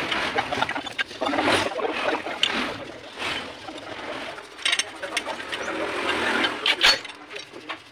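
Metal clinks and knocks as a brake disc is handled and seated against a lathe's four-jaw chuck, with a short cluster of sharp, louder clatter near the end.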